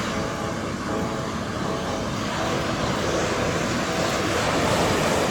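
A propeller plane's engine droning steadily, with surf and wind noise underneath.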